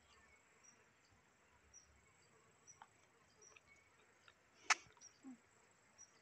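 Faint, short insect chirps repeating about once a second, with one sharp click about three-quarters of the way through.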